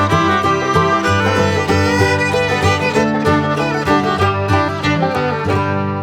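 Background music with fiddle and banjo in a bluegrass style, quick plucked notes over held chords, ending on a sustained chord that begins to fade near the end.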